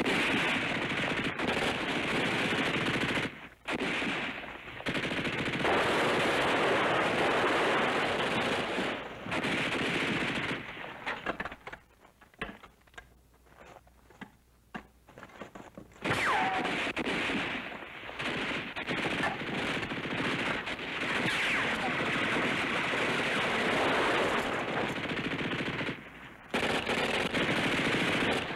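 Gunfight of machine-gun and rifle fire, dense and sustained, easing about a third of the way in to scattered single shots for several seconds before the heavy firing picks up again.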